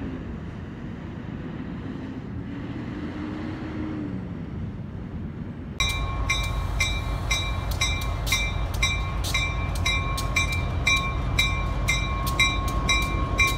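Diesel locomotive engine running, a steady rumble with a faint pitch that wavers up and down. About six seconds in it cuts suddenly to a railroad crossing bell ringing about three strikes a second over a locomotive's low rumble.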